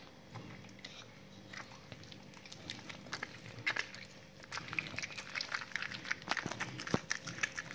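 Pit bull biting and chewing a piece of raw meat held in a hand: wet chewing with many short clicks, sparse at first and much busier from about halfway through.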